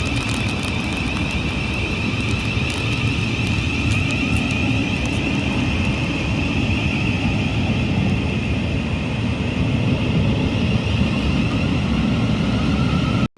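Electric passenger train running at the platform: a steady heavy rumble with a high whine from its traction equipment. It cuts off abruptly near the end.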